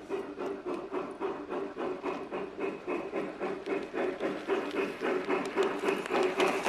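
G-scale model train running, its electric motor humming steadily under an even clicking of about four clicks a second, getting louder toward the end as it comes closer.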